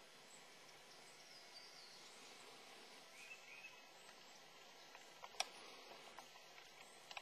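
Near-silent woodland with a faint steady hiss, a faint bird chirp gliding down about a second in and another around three seconds, and a few sharp clicks later, the loudest about five seconds in.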